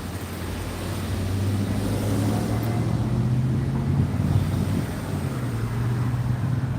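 A motor vehicle's engine running close by with a steady low hum. Its pitch steps up about four seconds in, then eases back slightly about a second later.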